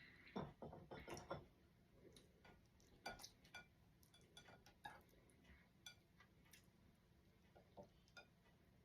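Faint eating sounds of a person eating fufu with palm butter by hand: soft wet clicks and smacks, a quick run of them in the first second and a half, then scattered ones.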